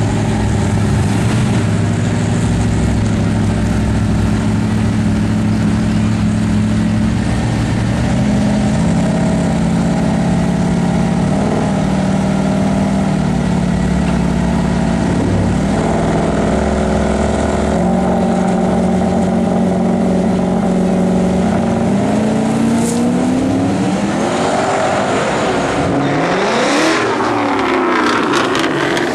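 Turbocharged Ford Lightning pickup's V8 engine running at low, steady revs with small steps up and down in pitch, then revving up about 22 seconds in, with engine notes sweeping up and down toward the end.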